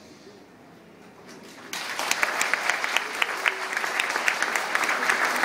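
A large audience of children starts clapping suddenly about a second and a half in, after a brief lull, and the dense applause keeps going.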